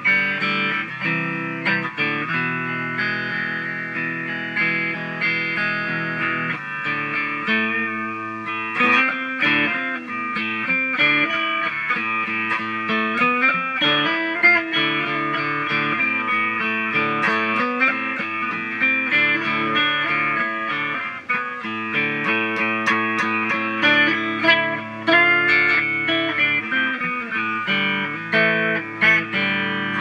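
Instrumental electric guitar music: a melodic guitar line over sustained low notes.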